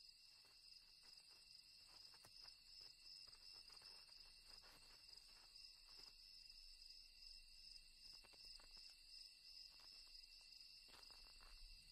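Faint, steady chirring of night crickets, with a few soft ticks scattered through it.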